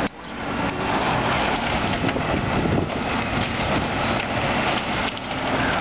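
Demolition excavator running as it tears into a fire-damaged wooden apartment building, with a continuous dense crackle and crunch of breaking timber and debris.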